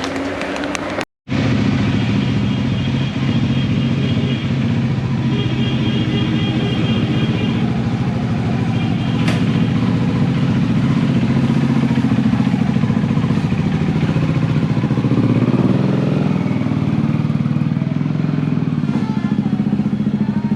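Motorcycle engine idling steadily, its low running note continuous after a brief cut near the start.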